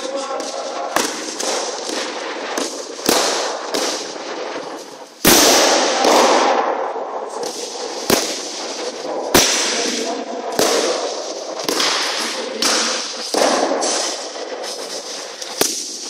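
Escrima sticks cracking against each other and against the sparrers' gloves and helmets, in irregular sharp strikes roughly once a second that echo around a large sports hall; the loudest strike comes about five seconds in.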